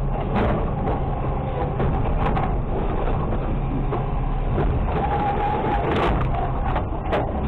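Automated side-loader garbage truck's engine and hydraulics running steadily as the packer pushes trash out of the hopper, with a few sharp clunks and knocks along the way.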